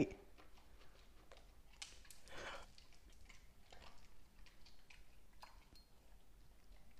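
Husky chewing dry kibble from its food bowls: faint, irregular crunches and clicks.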